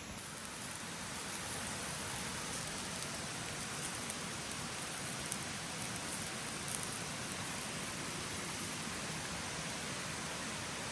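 Mountain stream water rushing steadily, with a few faint ticks around the middle.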